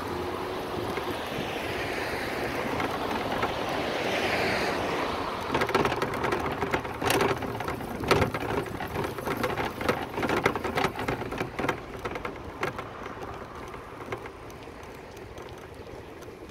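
Bicycle in motion: a steady rushing noise with a spell of rattling clicks and knocks in the middle, growing quieter near the end.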